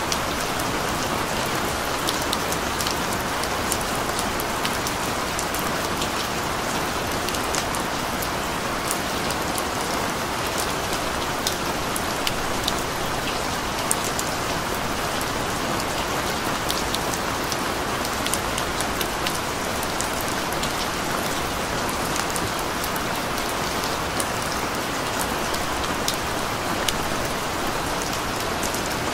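Steady rain falling: a constant hiss dotted with many sharp, separate drop ticks.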